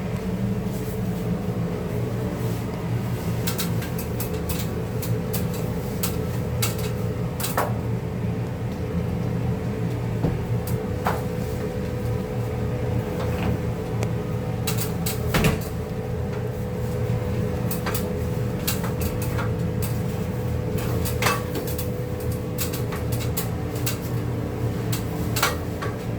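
A machine running with a steady hum and one steady tone, with many short knocks and clatters scattered throughout.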